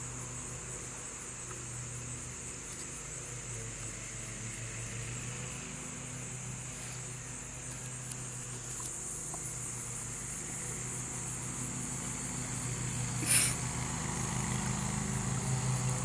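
Steady low hum like an idling motor vehicle, under a steady high insect drone. A short, loud noise cuts in once about thirteen seconds in.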